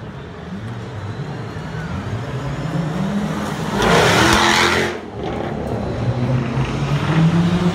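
A car's engine rising in pitch as it accelerates toward the listener. It passes close by about four seconds in with a loud rush of engine and tyre noise that cuts off sharply as it goes past. A second car's engine then builds as it approaches.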